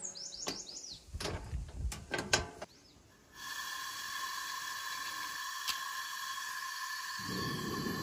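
Clicks and knocks of a metal propane camp stove and its cylinder being handled, with a few short bird chirps. About three seconds in, after a short drop, a steady hiss with two steady tones takes over, and a low rumble joins it near the end.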